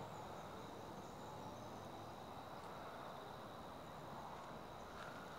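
Faint outdoor ambience: an insect drones steadily on one high pitch over a low, even hiss.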